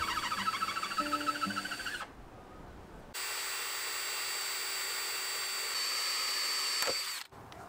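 DeWalt 20V cordless drill boring a pilot hole in a pine board with a thin 1/8-inch bit. For about two seconds it makes a fast stuttering chatter over a high motor whine, the sound flagged as a terrible foreshadowing of the bit's trouble. After a short lull the drill runs steadily, its pitch stepping up slightly near the end before the sound cuts off.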